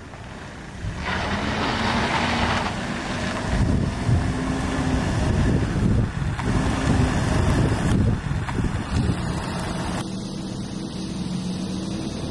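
A van's engine running as it drives along a road, with tyre and road noise. The engine note wavers up and down, and the sound changes abruptly near the end.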